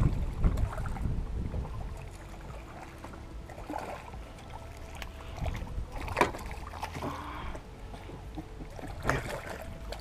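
Wind buffeting the microphone, easing off after about two seconds, then a few sharp splashes as a hooked crappie thrashes at the surface beside the boat, the clearest about six seconds in and again near the end.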